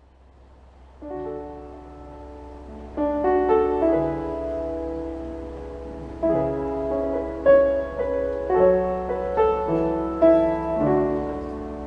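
Grand piano playing a slow introduction of held chords, beginning about a second in, over a steady low hum.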